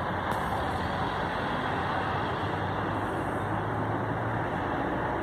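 Steady road traffic noise, with a low engine hum that comes in about halfway through and fades near the end.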